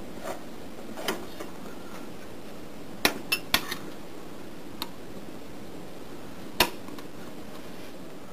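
A few sharp metal clicks and clinks as an aluminium AndyMark Toughbox side plate is fitted down onto the gearbox over its shafts and bearings; the loudest click comes past the middle.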